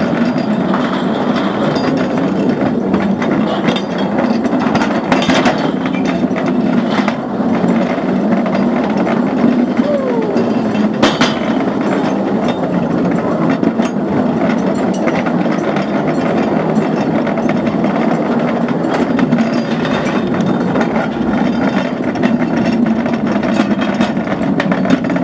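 Ore cart's wheels rattling and clattering along mine rails at speed, a steady loud racket with scattered sharp clicks and a couple of brief falling squeaks.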